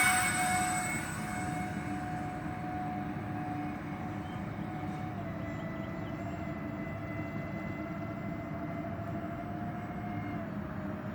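Electric ducted fans of an RC Airbus A330 model airliner whining steadily at low throttle, the pitch stepping down slightly about halfway through and again near the end.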